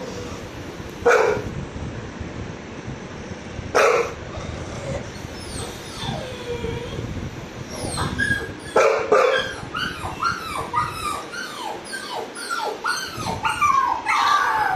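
Puppy crying played over a TV: a dense run of high, falling whimpers and whines, about two a second, from about halfway on. Two sharp barks come earlier, about one second and four seconds in.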